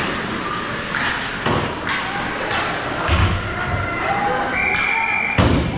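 Thuds and knocks of pucks, sticks and players hitting the boards of an ice hockey rink, with the loudest heavy thuds about three seconds in and again near the end, among scattered voices of players and spectators.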